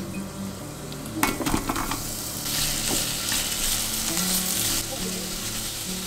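Sliced carrots and zucchini frying in oil in a pot, sizzling as they are stirred. A brief clatter comes a little over a second in, and the sizzling grows louder from about halfway through.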